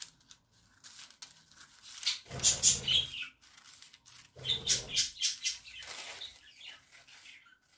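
Scissors cutting through folded layers of pattern paper, with the paper rustling as it is held and turned; two louder stretches of rustling and snipping come about two seconds in and again about four and a half seconds in.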